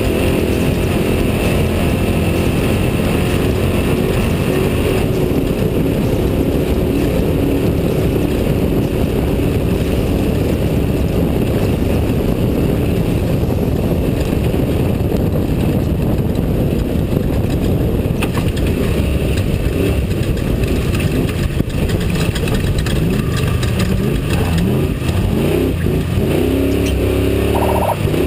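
Off-road desert race truck driving hard, its engine heard loud and steady from onboard. The engine pitch rises and falls in the last few seconds.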